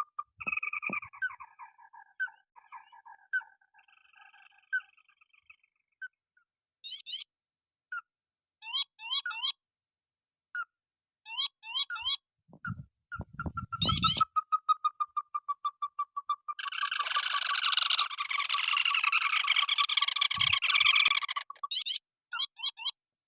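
Rails of the rice field, crakes and waterhens, calling: series of short, quick, repeated notes and a fast trill, then a loud, dense stretch of calling for about five seconds in the last third.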